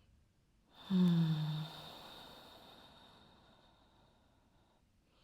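A woman's audible sigh about a second in, a short voiced exhale falling in pitch that trails off into a breathy out-breath over the next couple of seconds: a cleansing breath during yoga practice.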